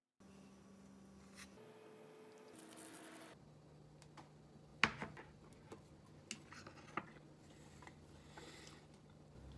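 Faint fork-and-board handling sounds while tasting the plated steak: a handful of sharp clicks and taps about halfway through, over a low steady hum.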